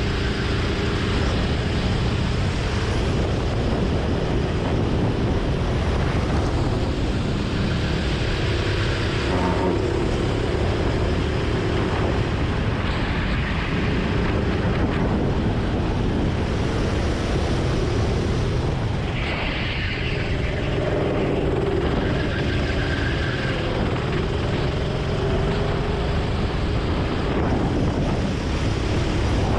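Go-kart engine running hard at speed under heavy wind rumble on the onboard camera, its pitch rising and falling as the kart brakes for corners and accelerates out of them.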